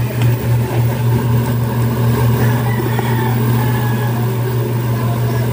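A steady low machine hum at an even pitch.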